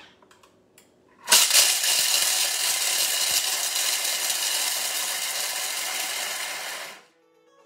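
Thermomix blade spinning at speed 7, grinding chunks of chocolate against the bowl. A loud, steady grinding noise starts abruptly about a second in and stops sharply near the end, after about five seconds.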